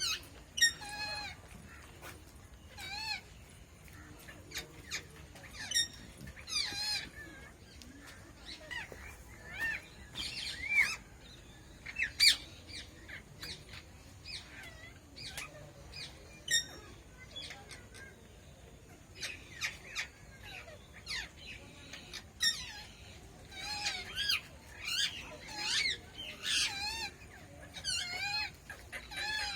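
Red-breasted parakeets calling: short, harsh, rising-then-falling squawks repeated at irregular intervals, with several calls coming close together near the end.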